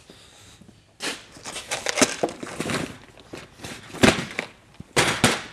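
Rummaging through new parts: plastic packaging crinkling and rustling, with a couple of louder knocks near the end.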